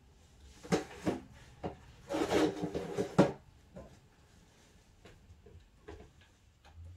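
Things being handled and moved while tidying up: a couple of knocks about a second in, a rustling scrape lasting about a second, then a sharp knock, followed by a few fainter clicks.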